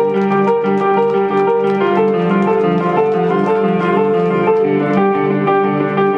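Psytrance music in a breakdown: sustained piano-like keyboard chords shifting every half second or so, over light, regular high ticks, with no kick drum or bass.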